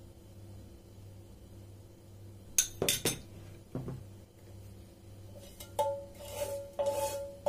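A metal spoon clinking against a porcelain plate while spooning yogurt onto manti: a few sharp clinks about three seconds in, then several more clinks that ring briefly near the end.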